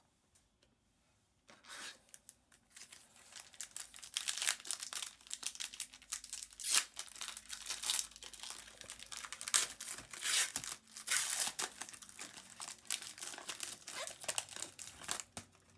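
A 2019 Panini Prizm trading-card pack wrapper being torn open and crinkled by hand. It makes a long run of irregular crackling and tearing that starts about a second and a half in.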